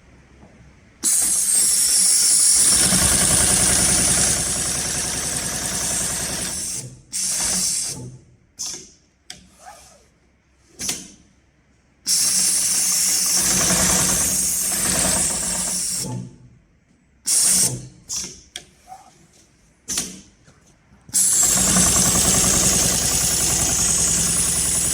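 HighTex 204-76-370 heavy-duty triple-feed long-arm sewing machine stitching in three long runs of several seconds each, stopping and starting abruptly, with short bursts of stitching between the runs.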